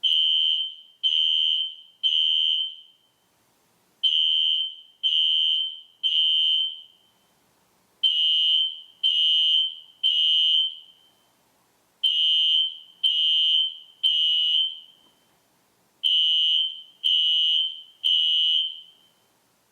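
System Sensor SpectrAlert Classic fire alarm horn sounding a high, shrill tone in groups of three half-second blasts, each group followed by a pause and repeating every four seconds. This is the temporal-3 evacuation signal.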